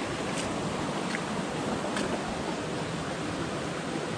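Steady rushing of a rocky mountain brook flowing over boulders and stones, with a few faint ticks in the first couple of seconds.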